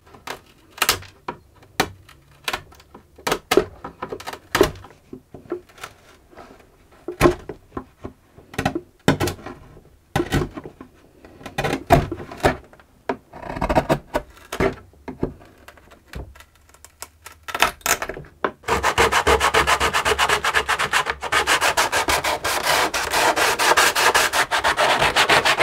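Chisel cutting the old wooden reinforcements off the inside of a cello's ribs: scattered sharp clicks and cracks as they come away. For the last several seconds, a rapid, continuous scraping as the inner rib is scraped clean of old glue.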